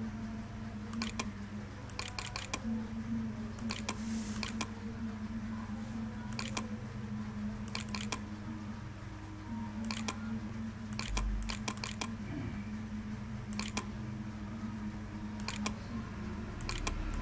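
Computer mouse clicking at a slow, uneven pace, one click or a quick double click every second or two, as letters are entered on an on-screen keyboard. A steady low hum runs underneath.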